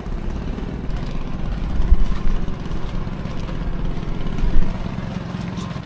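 Boat engine idling steadily with a low, pulsing rumble, and two dull thumps about two seconds in and again near four and a half seconds.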